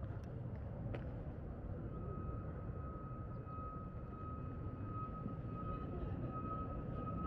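Steady low outdoor rumble, with a steady high-pitched whine joining about two seconds in and holding on.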